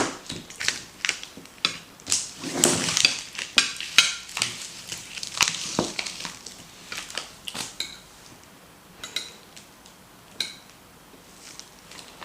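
A spoon clinking and scraping on a plate of jollof rice, mixed with close-miked chewing and mouth sounds. The clicks come thick and fast for the first eight seconds or so, then thin out to a few.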